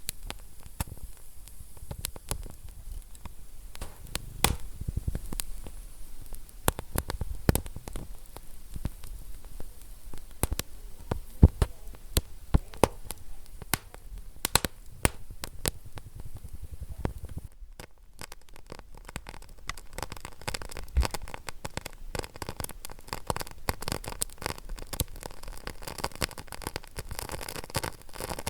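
Wood fire crackling in a fireplace: irregular sharp pops and snaps over a soft low rumble of flames. About two-thirds of the way in the crackle briefly drops away and comes back finer and denser.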